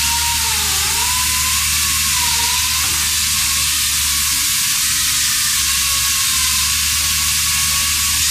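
Pneumatic concrete chain saw cutting through a concrete block: a loud, steady hissing grind of the chain and air motor, with a faint wavering whine running through it.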